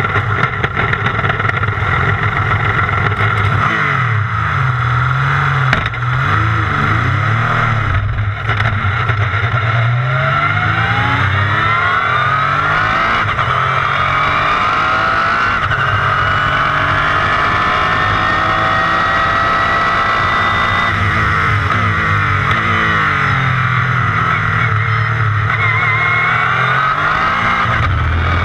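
Two-seater IndyCar's engine heard from onboard, running fairly steadily at low speed, then accelerating from about ten seconds in, its pitch climbing in a few successive steps.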